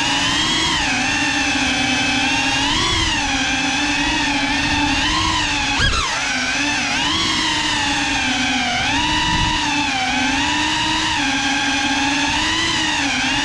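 FPV drone's motors and propellers whining, the pitch rising and falling continually with the throttle, with a brief sharp blip about six seconds in.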